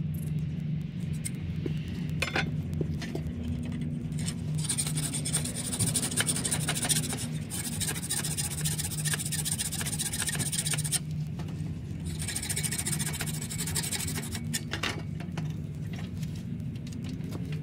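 Rasping scrape of a piece of wood being worked by hand against a steel saw blade, in a long run of strokes starting about four seconds in, then a shorter run after a brief pause. A steady low hum sits underneath.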